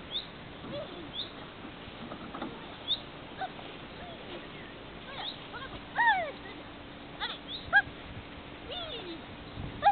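A dog giving short whines and yips, a scattered series of brief falling cries, the loudest about six seconds in.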